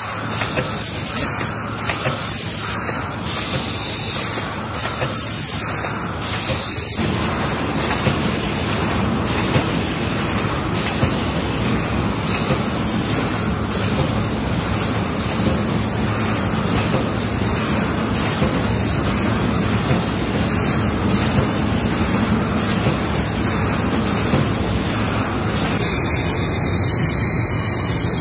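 Steady rushing noise of glass-factory gas burners and machinery heating glass tumblers on a rotating machine, a little louder from about seven seconds in.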